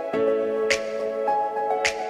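Gentle background music: held chords with a light percussive hit about once a second.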